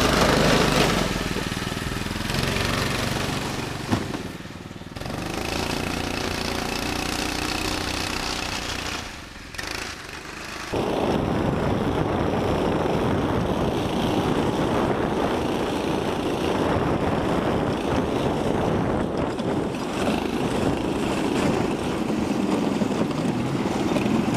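Small single-cylinder 6.5 hp clone engine driving a homemade tracked sled, running hard. At first its note rises and falls, dropping away briefly twice. Partway through, the sound changes suddenly to a steady, close-up run under load that holds to the end.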